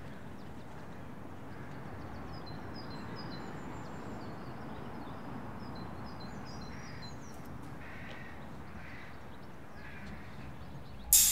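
Outdoor ambience: a steady hiss of background noise with small birds chirping, and a bird calling four times about a second apart two-thirds of the way through. Just before the end, a sudden loud crash cuts in.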